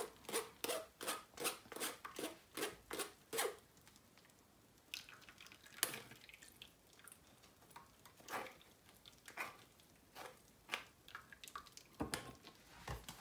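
Blended green vegetable pulp being pressed and scraped against a metal mesh strainer, first with a spoon and then by hand, as juice drips through. Soft, quick scrapes and squelches, about three a second for the first few seconds, then sparser ones.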